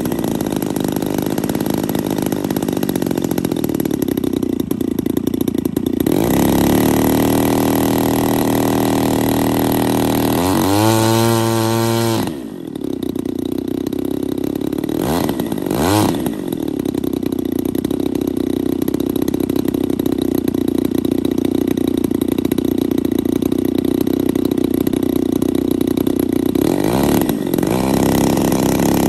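55cc two-stroke gasoline engine of a large RC model plane running on the ground. The revs step up about six seconds in, climb higher around eleven seconds and are cut back sharply, blip twice a few seconds later, and rise again near the end.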